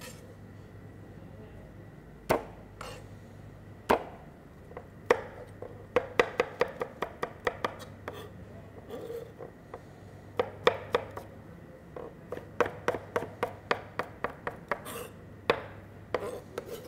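Kitchen knife chopping garlic cloves on a cutting board. A few single strikes come first, then quick runs of chops at several strokes a second, with short pauses between the runs.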